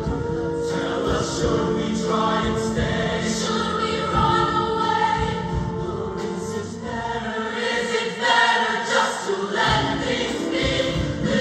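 Large mixed show choir singing sustained chords in harmony, with musical accompaniment underneath.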